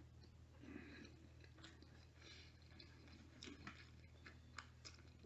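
Near silence with faint chewing and small mouth clicks, over a low steady hum.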